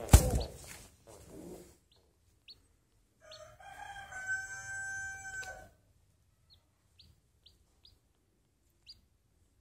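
A loud knock and scuffle at the very start as a hand reaches under a nesting pigeon. About three seconds in, a rooster crows once in the background for about two seconds. Faint short high chirps are scattered around it.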